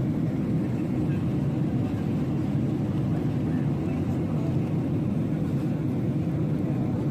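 Steady low rumble of engine and airflow noise inside the cabin of a Boeing 767 during its approach to landing.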